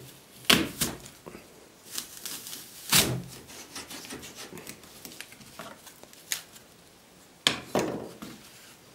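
Hand-pressed apple slicer-corer cutting an apple into wedges on a wooden board: a few separate crunching, cracking strokes as the steel blades go through the fruit and the slicer hits the board, with rubbing in between. The loudest come about half a second, three seconds and seven and a half seconds in.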